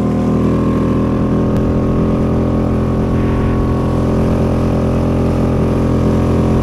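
Small Suzuki outboard motor running steadily in gear, pushing an inflatable dinghy along at an even speed.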